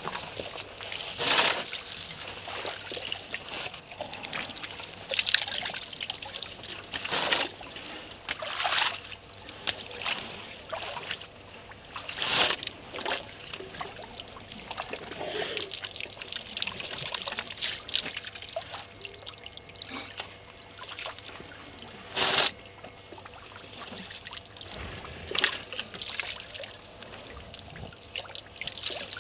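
African elephants drinking at a waterhole: water spilling and splashing as they squirt trunkfuls into their mouths, in irregular bursts every second or few.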